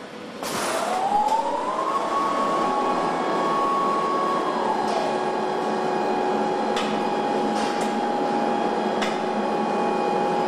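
Electric motor of assembly-line handling equipment whining: after a click it spins up in pitch, holds, then drops to a lower steady whine about four seconds in. A few sharp clicks and knocks of machinery ring out over it.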